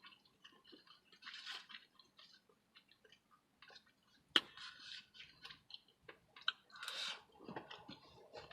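A person chewing a mouthful of Taco Bell chicken power bowl close to the microphone: soft, wet chewing and mouth clicks in irregular patches, with one sharp click about four and a half seconds in.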